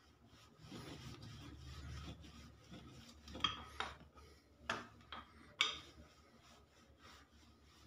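Wooden rolling pin rolling dough on a flour-dusted wooden board, a faint low rumble for about two seconds. It is followed by a few light, sharp knocks in the middle as the pin is put down and the dough is lifted and turned.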